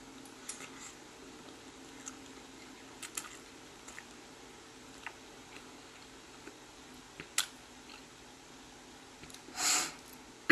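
Quiet chewing and mouth sounds of a person eating ramen noodles and saucy fried chicken, with small scattered clicks of a metal fork on the plate and teeth, over a steady low hum. A short breathy hiss stands out near the end.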